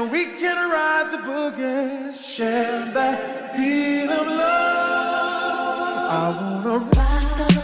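Background music: voices singing in layered harmony with no drums, then a deep bass and sharp drum hits come in near the end.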